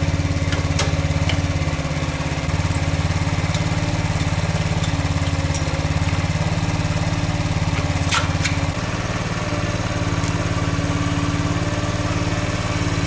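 Motorcycle engine idling steadily, freshly started from cold, with its air filter fallen off the carburettor. The idle note changes slightly, a little quieter, about nine seconds in, and a few light clicks and knocks are heard over it.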